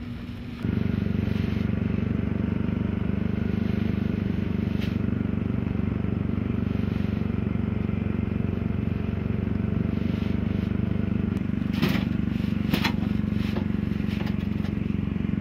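An engine running steadily, starting abruptly just under a second in, with two sharp knocks about a second apart near the end.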